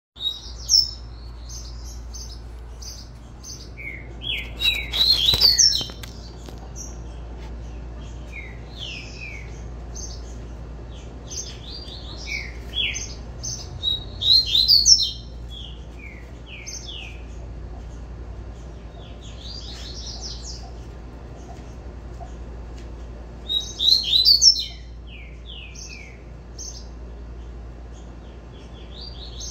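Caged double-collared seedeater (coleiro) singing its 'tui-tui' song: repeated phrases of quick, downslurred whistled notes. The song is loudest in three bursts, about 5, 15 and 24 seconds in, over a steady low hum.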